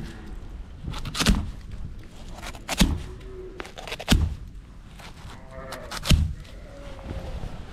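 Four dull thumps, about one every second and a half, over low steady background noise.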